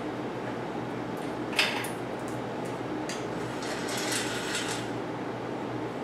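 Metal bicycle parts and tools clinking as they are handled on a bike in a workstand: one sharp clink about a second and a half in, then a spell of lighter clinks and rattles. A steady hum runs underneath.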